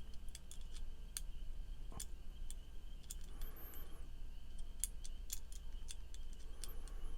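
Small, irregular metallic ticks and clicks of a driver bit working a pocket knife's pivot screw to start it in its threads during reassembly.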